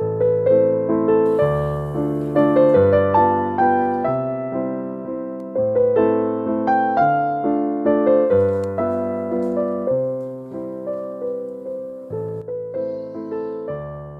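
Background solo piano music: a steady run of notes, each dying away, over low bass notes.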